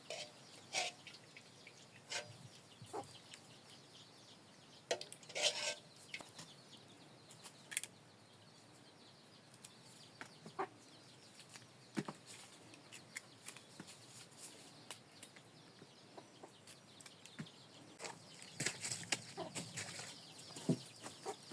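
Quiet background with scattered short clicks and knocks and a few brief calls, busiest a few seconds in and again near the end.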